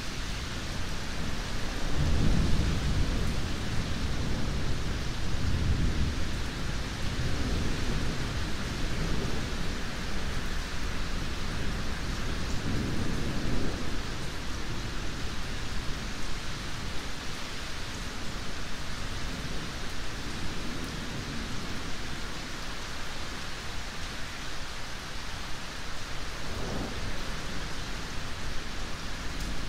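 Steady heavy rain hissing, with thunder rumbling low from about two seconds in, swelling and fading for some ten seconds, and a short low rumble near the end.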